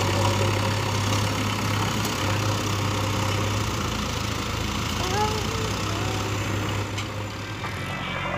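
Diesel engines of a farm tractor and a JCB backhoe loader running with a steady low hum while soil is loaded into the tractor's trailer; the sound eases off slightly near the end.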